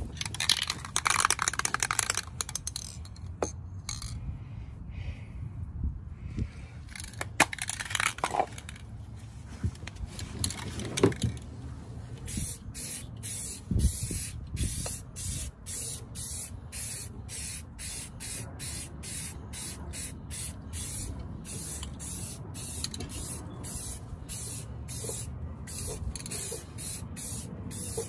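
Aerosol spray paint can hissing as it coats a car muffler. The spraying comes in scattered spells at first, then in a long run of short, quick, evenly spaced bursts through the second half.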